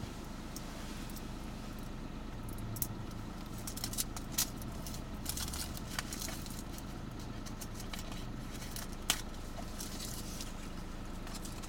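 Steady low hum of a car idling at a standstill, heard inside the cabin, with scattered small clicks and taps, the sharpest about nine seconds in.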